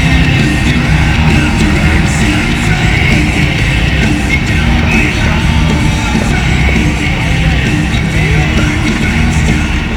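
Loud rock music with shouted vocals.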